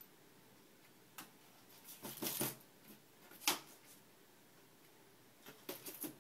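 Small loose items in a desk drawer clicking and rattling as a cat bats them around, in short clusters of taps with one sharper click in the middle.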